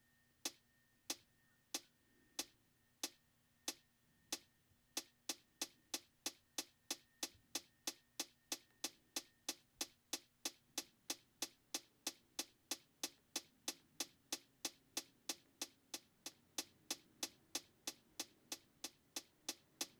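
Drum-machine hi-hat sample playing a sequenced pattern of short, evenly spaced ticks. It starts at about one and a half hits a second and doubles to about three a second around five seconds in. Near the end the hits vary in loudness as velocities are set.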